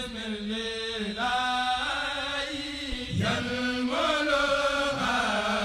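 Intro jingle of chanted singing: voices hold a few long notes in turn, changing pitch every second or two.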